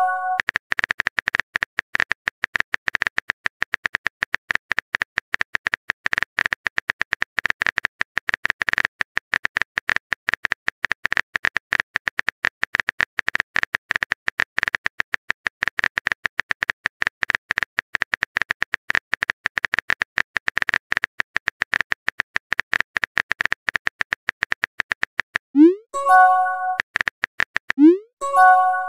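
Rapid keyboard-typing clicks from a texting app's sound effect. Near the end, two message-sent chimes about two seconds apart, each a short rising swoop followed by a bright pitched ping.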